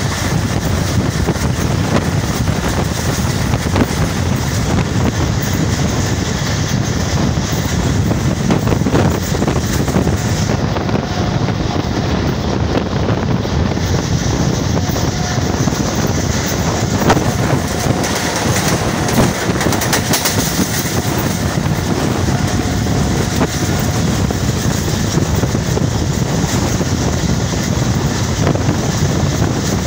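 Passenger train coaches running at speed, heard from a coach window: a steady rumble and clatter of wheels on rail, with a few sharper knocks over rail joints and wind rushing past the microphone.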